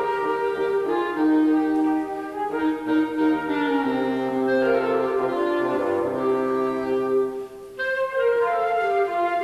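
A small wind ensemble, clarinet and bassoon among them, playing a Christmas carol in slow, sustained chords, with a brief break between phrases near the end.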